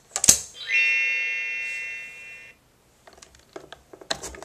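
VTech Disney Princess Talk and Teach toy phone: a sharp button click, then an electronic tone held for about two seconds and slowly fading. It is followed by a run of light plastic clicks and taps near the end.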